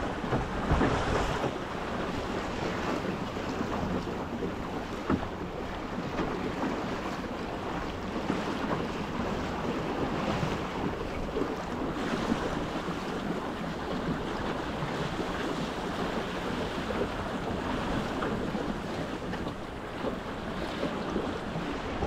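Wind buffeting the microphone over the rush and slap of choppy water along the hull of a small wooden canoe yawl under sail, a little louder in the first second or two.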